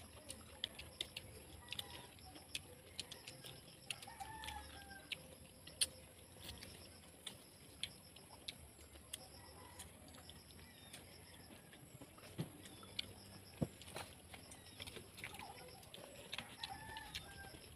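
Quiet chewing and lip-smacking of people eating rice and grilled fish with their hands, with many small scattered clicks. A chicken clucks faintly a few times in the background.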